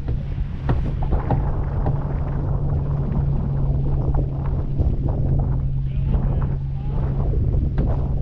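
Wind buffeting the microphone over water rushing and splashing along the hull and wake of a racing sailboat under sail, with a steady low hum underneath.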